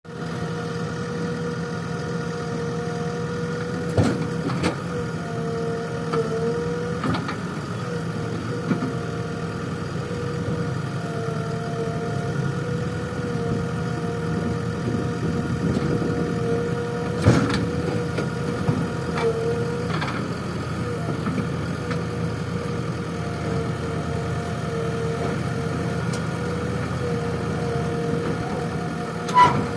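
JCB backhoe loader's diesel engine running steadily, with a steady whine over its hum and a few sharp metallic knocks, the loudest near the end.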